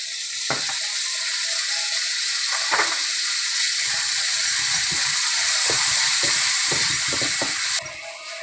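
Tomatoes and bell peppers sizzling loudly in hot oil in a honeycomb-textured nonstick wok, just tipped in, while a spatula stirs them with scrapes and knocks against the pan, coming thick and fast in the second half. The sizzle drops off suddenly near the end.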